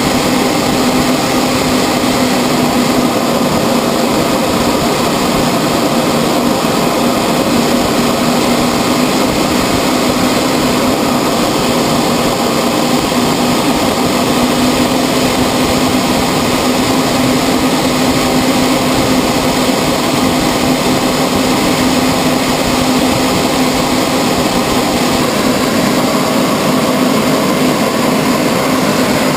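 Steady drone of a CT-114 Tutor's single turbojet and rushing air, heard inside the cockpit in flight, with a steady low hum underneath. Near the end a faint higher whine starts to rise.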